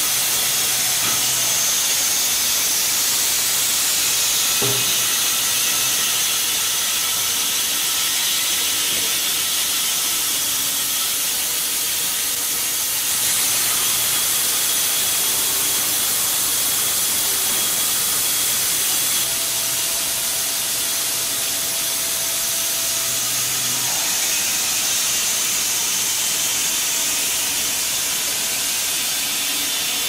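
Band sawmill blade cutting through a log, a steady high hiss over a faint low motor hum.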